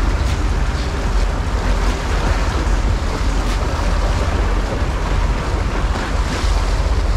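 Boat underway at sea: the stern wake churning and wind buffeting the microphone, over a steady low rumble.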